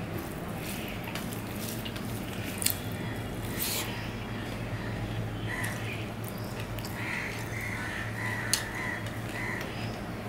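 Hand-eating sounds: fingers mixing rice and greens on a steel plate, with scattered clicks and chewing, over a steady low hum. From about halfway through, a bird calls several times in short notes in the background.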